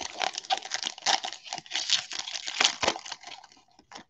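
Foil wrapper of a baseball card pack torn open and crinkled by hand: a dense run of crackles that thins out to a few ticks about three seconds in.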